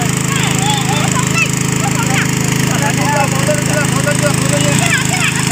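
Steady low drone of an engine-driven water pump, with birds chirping and twittering over it.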